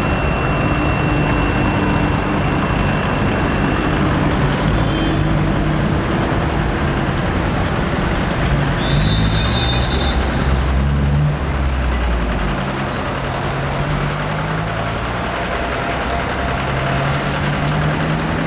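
Coach engine and road noise from inside the moving bus, the engine note shifting up and down with changes of speed and a heavy low rumble that eases off about twelve seconds in. A short high beep sounds once, about nine seconds in.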